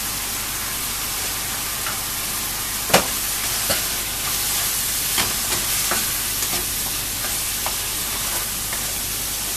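Chopped onions, green chillies and capsicum sizzling in oil in a non-stick pan as a wooden spatula stirs them. The spatula clicks against the pan now and then, sharpest about three seconds in.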